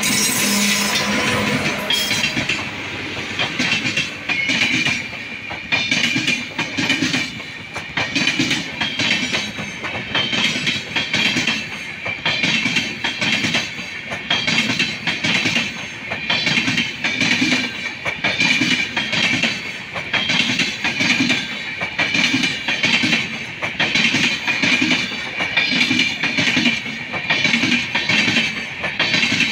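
Indian Railways WAP-7 electric locomotive and its long rake of passenger coaches passing close by at speed. The locomotive goes by at the start, then the coaches rush past with their wheels clattering over the rail joints in a steady beat about once a second.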